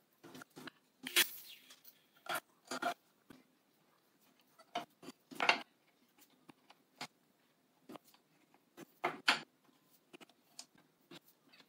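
Wooden battens and hand tools being handled on a wooden workbench: scattered knocks and clicks of wood set down and tapped against wood, with the loudest knocks about a second in and again around nine seconds.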